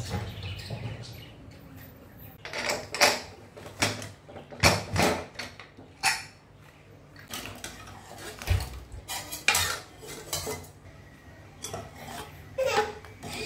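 Metal cooking utensils and pots clinking and knocking: a run of irregular, sharp clinks, with one duller thump a little past halfway.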